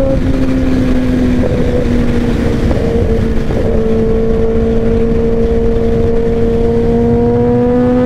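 Suzuki GSX-R 600's inline-four engine running with loud pipes while riding. Its pitch dips slightly a second or so in and climbs gently near the end, over a steady rush of wind on the microphone.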